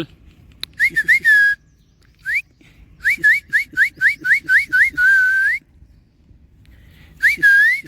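A person whistling to call a husky puppy: short rising whistles, several quick runs of them, one held a little longer about five seconds in.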